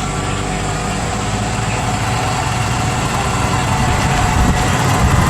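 A vehicle engine running steadily at low revs, close by, slowly growing a little louder.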